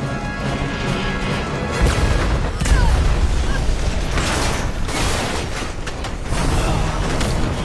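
Dramatic film score under a run of deep booms and crashes, the first about two seconds in, with loud rushing surges around the middle.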